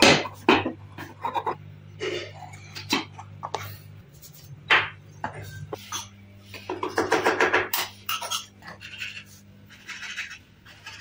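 Hand tools working a copper goblet inlaid with khatam, chiefly a steel blade scraping the copper. It makes a series of short raspy scrapes, with a denser rasp about a second long around seven seconds in.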